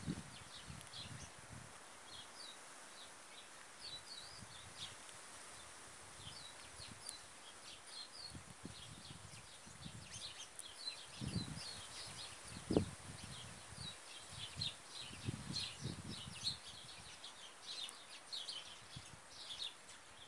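Small birds chirping: many short, high chirps throughout, with a few soft low knocks in the middle stretch as a saffron finch pecks at cracked corn in a wooden feeder.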